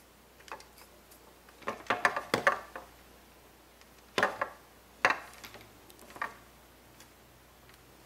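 Handling noise from electrical wires being joined by hand, with a plastic wire nut twisted onto the stripped ends. It is a flurry of small clicks and scrapes about two seconds in, then single ones about a second apart.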